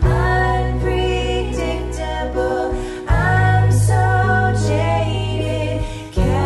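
Women's voices singing a slow song together over sustained low chords, with a new chord coming in about every three seconds.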